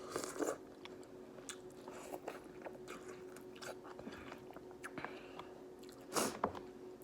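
A person chewing and biting food from a seafood boil close to the microphone, with small mouth clicks and a louder burst of noise about six seconds in.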